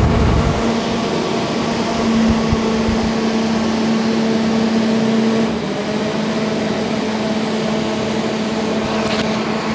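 Bajaj air cooler running: a steady fan-motor hum with air rushing through the front grille. There is a low thump at the very start, and about five and a half seconds in the hum shifts and drops a little as a control knob is turned. A few light clicks come near the end.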